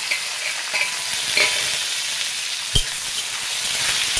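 Sliced onions sizzling steadily as they fry in hot mustard oil in a metal kadhai, with a metal spatula scraping and clinking against the pan. One sharp knock, the loudest sound, comes near three seconds in.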